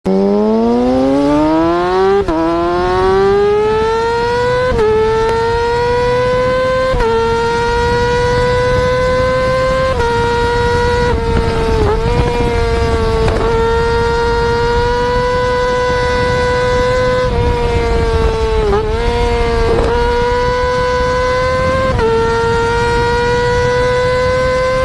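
Yamaha R6's inline-four engine at high revs under hard acceleration, a high whine that climbs steeply in pitch and drops slightly at each upshift, about every two to three seconds at first. It then holds a steady high pitch, with two brief dips and a few more shifts.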